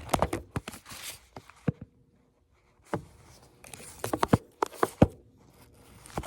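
Scattered light taps, clicks and rustling, with a brief lull about two seconds in.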